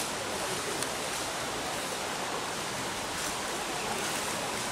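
Steady rushing noise, with a couple of faint clicks near the start.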